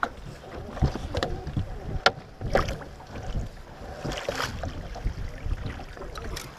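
Wind buffeting the microphone and water lapping at a fishing boat while a musky is fought to the landing net, with scattered knocks and clicks of gear in the boat and a brief rush of splashing about four seconds in.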